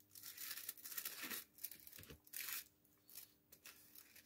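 Thin cigarette rolling paper being torn and rustled by hand, in short irregular bursts: a longer stretch at the start and another about two and a half seconds in.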